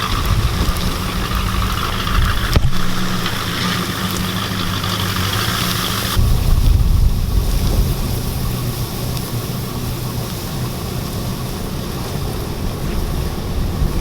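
Four-wheel-drive pickup truck engine running steadily at low revs as the truck drives, with wind rushing past. A single sharp knock sounds about three seconds in, and the sound changes abruptly about six seconds in.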